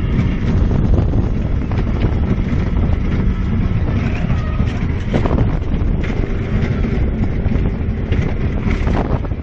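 Steel hypercoaster train (D. H. Morgan Manufacturing's Mamba) running at speed along its track, the wheels rumbling under heavy wind buffeting on the onboard microphone.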